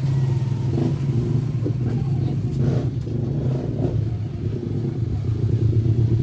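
Deep, steady bass playing loudly through a JBL Go 3 amplifier driving Tribit MaxSound Plus speaker drivers, as in a bass test.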